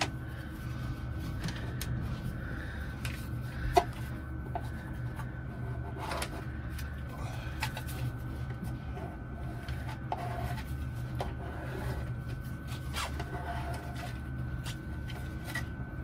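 Light rubbing, tapping and small clicks of hands and a small applicator working cling film onto a small sliding window, over a steady low hum. One sharper click comes about four seconds in.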